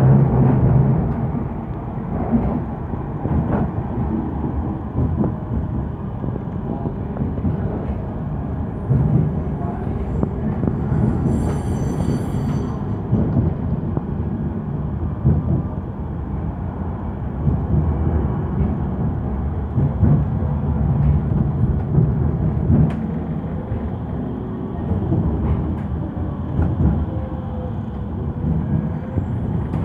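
Cabin sound of a Manchester Metrolink tram (Bombardier M5000) on the move: a steady low rumble of wheels on rail and running gear, with a brief faint high-pitched squeal about twelve seconds in.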